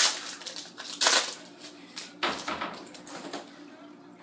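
Trading cards and a foil pack wrapper being handled: a few short papery swishes and crinkles, the loudest right at the start and about a second in, fading off after about three and a half seconds.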